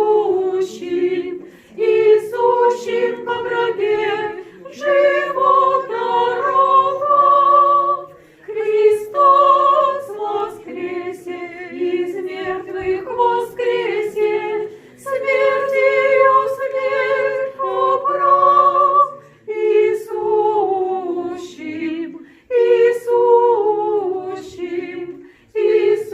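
Russian Orthodox church choir singing liturgical chant a cappella, in sung phrases of a few seconds each with brief pauses between them.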